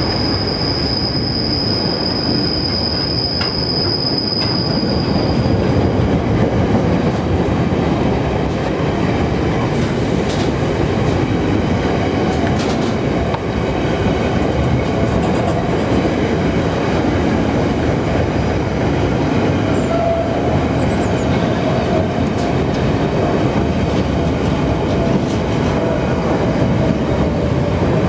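Freight train wagons rolling past at close range: a steady, loud rumble of wheels on rail. A high-pitched wheel squeal sounds for the first five seconds or so, and a fainter, lower squeal comes in about twelve seconds in and runs on.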